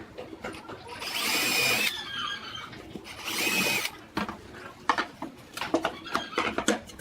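Small electric power tool run in two short bursts of under a second each, with a high motor whine, followed by scattered clicks and knocks of tool handling.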